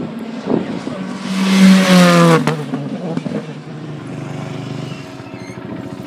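Turbocharged four-cylinder rally car engine at high revs, loudest about one and a half to two and a half seconds in, its pitch falling, then running on lower and steadier.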